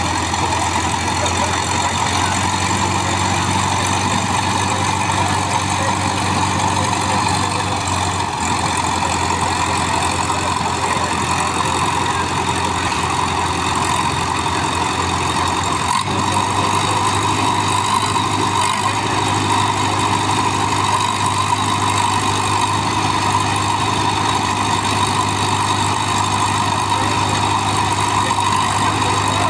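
Two diesel tractor engines, a Sonalika and a Swaraj 744 FE, running steadily and hard, coupled back to back and straining against each other in a tug-of-war pull. A deeper low drone grows stronger about halfway through.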